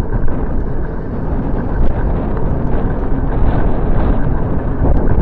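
Wind buffeting the microphone of a bicycle-mounted camera while riding, a steady low rumble with the tyres running on the cycle-lane pavement.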